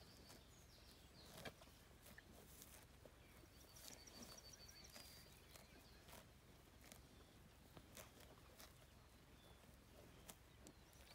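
Near silence: faint scattered clicks from a heifer tearing and cropping grass close by. A short bird trill sounds about three seconds in.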